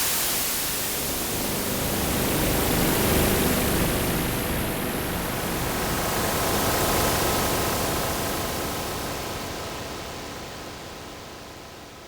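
Korg opsix FM synthesizer sounding a noisy, hiss-like sustained patch that swells and ebbs. Faint pitched tones come through the noise in the middle, and it fades away slowly over the last few seconds.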